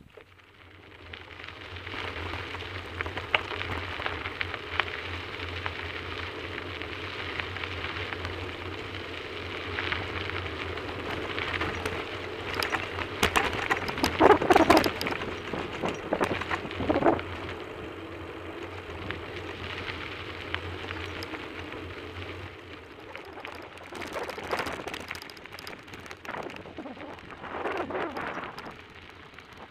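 Bicycle tyres crunching over a loose gravel road, with the bike rattling and a steady rush of riding noise; louder jolts and clatter come about halfway through and twice more near the end.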